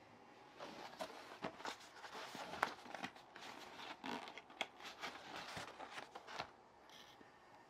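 Packaging being handled and opened: irregular rustling and crinkling with small clicks and scrapes, easing off near the end.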